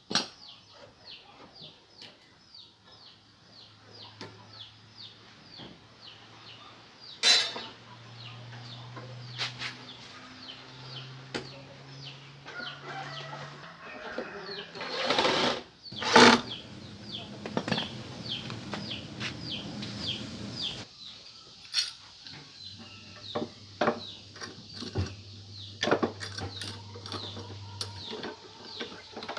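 A low electric-motor hum that comes and goes, with a few sharp knocks, while a small bird chirps quickly and repeatedly, about three short falling chirps a second.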